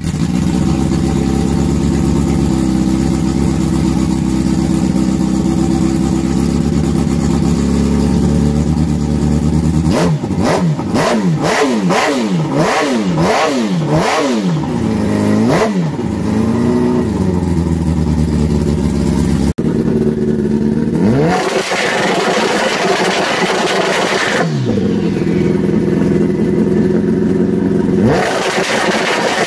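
Suzuki GSX-R 1100 inline-four engine, newly fitted with a turbo conversion, running on its first test start. It idles steadily for about ten seconds, then is blipped about six times in quick succession, then revved harder twice for a few seconds each.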